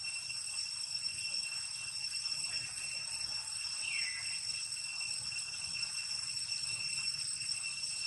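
Insects droning in a steady, high-pitched whine, with a short falling squeak about four seconds in.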